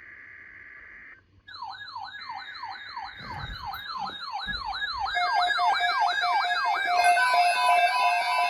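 Emergency alert audio: a burst of buzzing data tones typical of an EAS header, then an electronic siren whose pitch sweeps up and down about three times a second. It grows louder, with steady alarm tones piling on top in the last few seconds.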